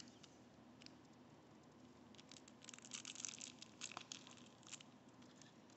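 Faint crinkling and crackling of plastic shrink-wrap on a deck of game cards as it is picked at to be opened, coming in bunches of little clicks from about two seconds in to nearly five.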